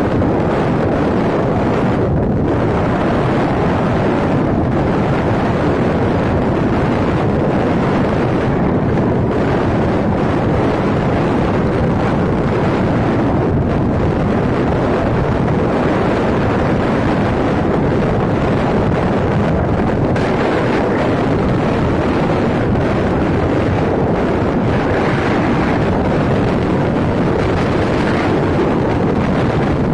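Wind rushing steadily over the microphone of a camera riding on a moving motorbike, an even, loud roar with no clear engine note above it.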